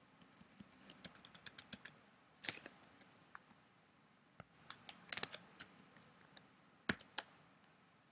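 Faint computer keyboard typing: irregular key clicks in short runs, with a few louder single clicks.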